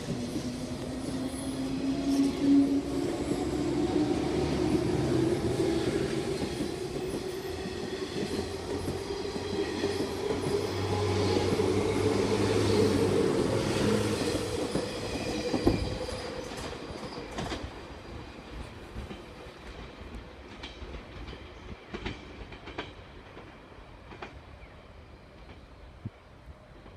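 JR East 185 series electric train pulling out and accelerating: its traction motors whine and rise steadily in pitch. After about fifteen seconds the whine gives way to wheels clacking over rail joints, fading as the train moves away.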